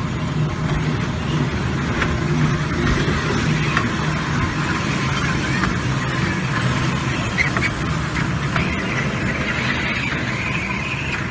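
Miniature ride-on train running along its track, a steady motor hum with some mechanical rattle.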